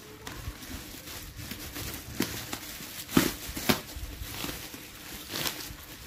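Plastic bubble wrap crinkling and rustling as it is handled, with a few sharper crackles.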